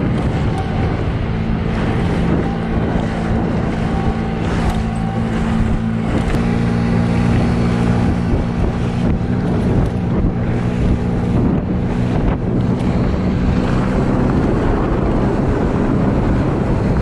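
Motorboat engine running steadily under way, a constant low drone, with wind buffeting the microphone and water rushing past the hull.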